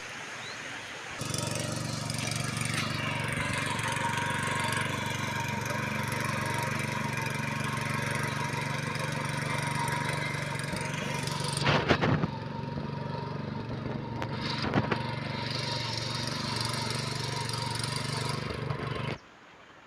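Power tiller's small engine running steadily while ploughing, with two brief knocks partway through; it starts about a second in and cuts off near the end.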